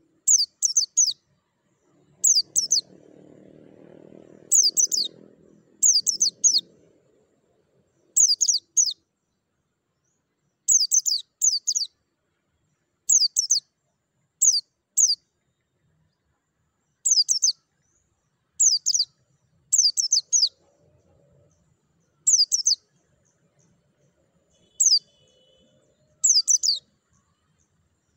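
White-eye (pleci) calling: short, very high chirps in quick clusters of two or three, repeated every second or two.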